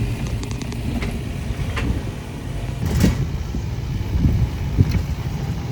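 A small open electric rental cart driving along: a steady low rumble of wind and road noise, with a couple of sharp knocks about three and five seconds in.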